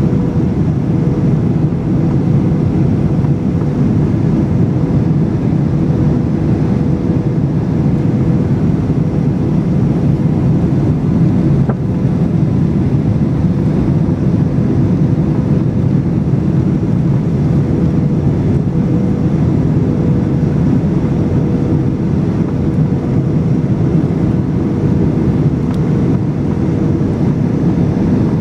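Steady cabin noise of a Boeing 737-800 on final approach, heard from a window seat over the wing. A low rumble of engines and airflow carries a steady hum above it.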